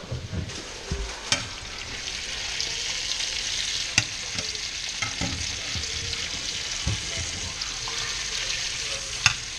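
Speckled trout fillets sizzling steadily as they fry in a pan, with metal tongs clicking and scraping against the pan a few times as the fish is turned.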